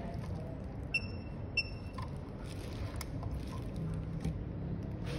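Steady low background rumble, with two short high electronic beeps about half a second apart roughly a second in, and faint taps and rustles of a phone display panel being handled on a silicone repair mat, a sharp click about three seconds in.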